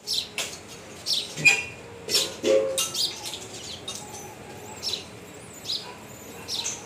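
Small birds chirping: a string of short, high calls at irregular intervals.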